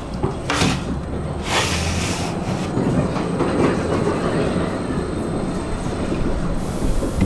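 Tram running along its rails: a steady rumble of wheels on track, with two short hissing noises in the first couple of seconds.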